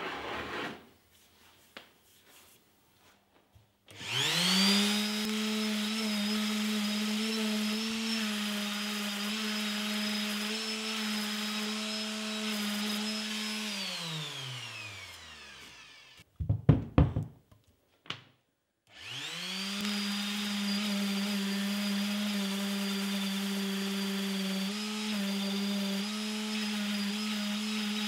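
Makita random orbital sander sanding body filler on a steel motor housing, run twice. Each time it spins up to a steady hum, runs for about ten seconds and winds down, with a few sharp knocks in the gap between the runs.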